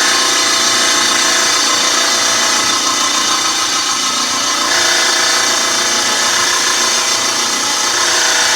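Lapidary trim saw running steadily with its blade cutting through a piece of hard condor agate held in the saw's vise, a loud, even grinding whine with a slight shift in tone about halfway through.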